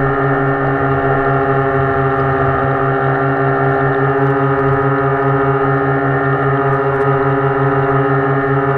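Electric drive of a radio-controlled model rescue boat running at steady speed, heard from on board: a steady hum of several held tones over a fast, even low throb.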